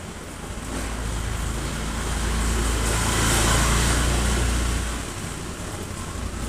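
A car passing on a wet road: low engine rumble and tyre hiss swell to a peak about three and a half seconds in and fade away by five seconds, over a steady hiss of rain.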